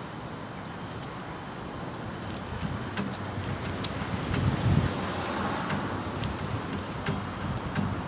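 A car passing on the street over steady traffic noise, growing louder to its loudest about halfway through and then easing off.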